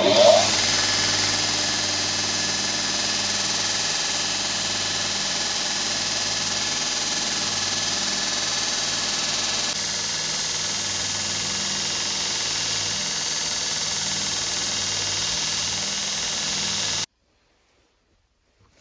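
Belt grinder running with a wooden block pressed against its sanding belt: a steady motor hum under a loud, even sanding hiss. It stops abruptly near the end.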